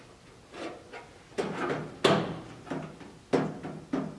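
A series of sharp knocks, about one every two-thirds of a second, each followed by a short ring.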